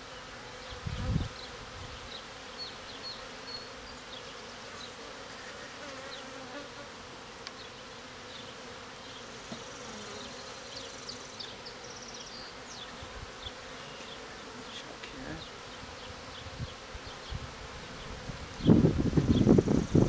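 Honeybees buzzing in a steady hum around an open hive, with a short low knock about a second in. Near the end a much louder rustling noise sets in and covers the hum.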